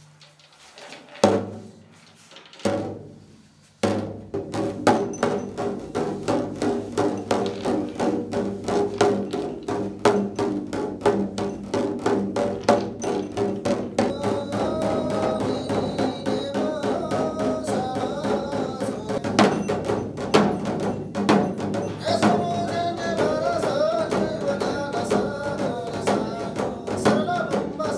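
Shamans' double-headed frame drums (dhyangro) beaten with curved sticks: a few single strokes, then from about four seconds in a fast, steady beat. A voice chants over the drumming in the second half.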